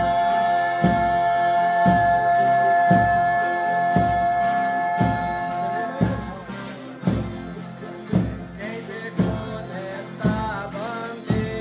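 Folia de Reis music: voices holding one long note for about the first six seconds, then a male voice singing the next line, over strummed guitar and viola caipira and a drum beating about once a second.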